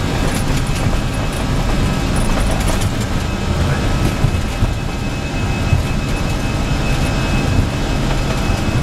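Steady rumble inside an Airbus A320-214 cockpit as the jet rolls at speed along the runway: CFM56 engines and wheels on the pavement. A faint steady high whine runs underneath, with a few light rattles in the first few seconds.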